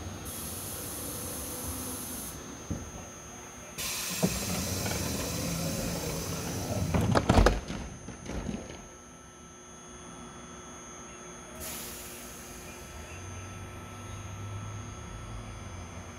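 The doors of a Korail Nuriro electric train closing: a hiss of air with the rattle of the doors moving for about three seconds, ending in a loud thump as they shut about seven and a half seconds in. Near the end a short hiss of air, then a low steady hum as the train starts to pull away.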